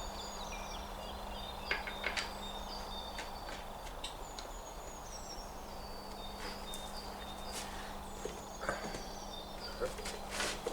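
Quiet outdoor background: faint short bird chirps over a steady low hum, broken by a few scattered clicks and knocks, some of them in quick pairs.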